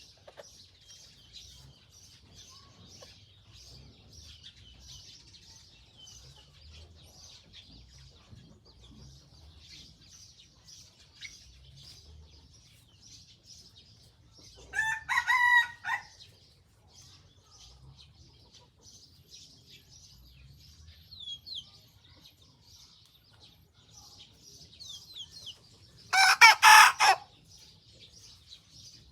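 Young white bantam rooster practising its crow: two crows of about a second and a half each, one near the middle and one near the end, over steady high chirping.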